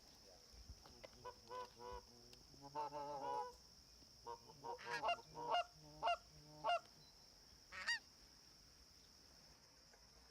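Canada geese honking as a flock comes in: a series of separate two-note honks, a quick overlapping run of them about three seconds in, then single honks spaced a second or so apart, over a steady high-pitched drone.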